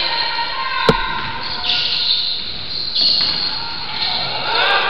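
Basketball game sounds in a large, echoing gym: a single sharp, ringing impact of the basketball about a second in, then short high sneaker squeaks on the hardwood court over the murmur of spectators.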